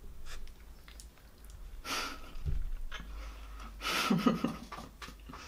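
A young woman's soft, breathy laughter, coming in two short bursts about two seconds in and again around four seconds, the second with a little voice in it.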